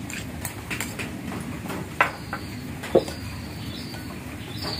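Metal spoon clinking and scraping against a ceramic bowl as chili is spooned into fish-sauce dipping sauce and stirred: small scrapes, then two sharp clinks about a second apart. A faint high insect trill comes in near the end.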